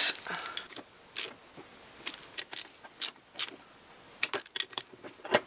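Ratchet wrench clicking in short, irregular runs while tightening the crankcase screws of a Puch Maxi E50 two-stroke engine.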